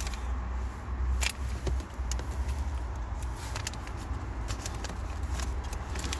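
Scattered light clicks and rustles of hands handling wiring and connectors under a van's steering column, over a steady low hum.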